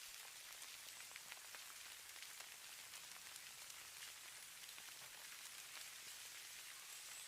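Falling snow: a faint, steady hiss dotted with many tiny ticks of flakes landing.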